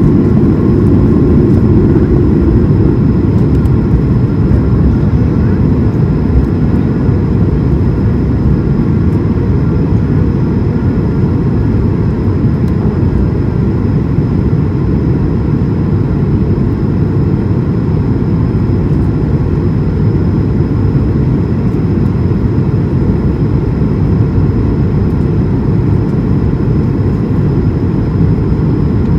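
Cabin noise of an Airbus A220-300 climbing out at takeoff power, heard from a seat behind the wing. Its Pratt & Whitney PW1500G geared turbofans make a loud, steady rumble with a few faint steady whining tones above it, slightly louder in the first couple of seconds.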